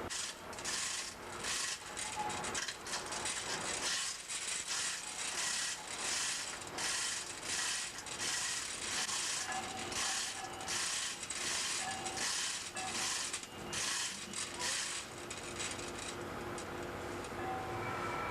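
A hand-worked ratcheting mechanism makes repeated short strokes, about two a second, then stops near the end. A faint steady hum runs underneath.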